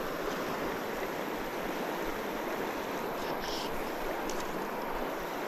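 Steady rushing of a river running over boulders.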